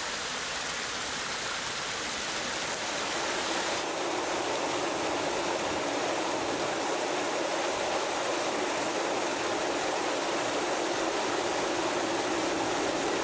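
Water rushing steadily down a small canal spill weir into a pool below. It gets slightly louder about four seconds in.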